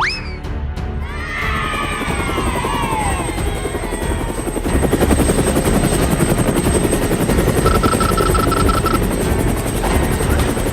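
Cartoon sound effects: a quick rising sweep at the start and a spray of falling whistle-like glides in the first few seconds, under a loud steady rapid mechanical chopping that runs on. About eight seconds in comes a string of short, evenly spaced beeps.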